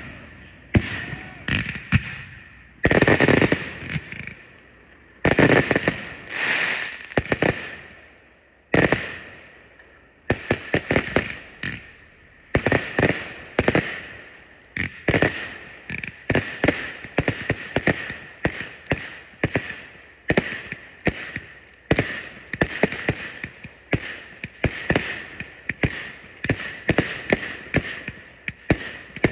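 Fireworks going off at close range. In the first several seconds a few shots come with longer hissing, crackling bursts; from about ten seconds in, a rapid string of launch and burst bangs follows, several a second.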